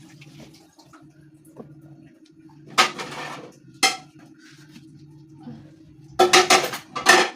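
Dishes and cutlery clattering: two separate clanks about three and four seconds in, then a quick run of clinks and clatters near the end, over a low steady hum.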